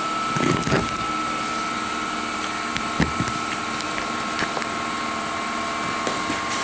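Steady background hum with a thin steady whine, under a few short scrapes and clicks from a pocket knife cutting into the lap sealant and rubber membrane at the edge of an RV roof, about half a second, three-quarters of a second and three seconds in.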